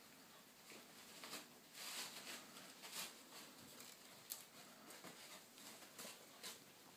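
Faint rustling and scratching of a puppy tugging and chewing at a cloth in a wicker dog bed. There are a few brief louder rustles around two and three seconds in, and a short sharp tick a little after four seconds.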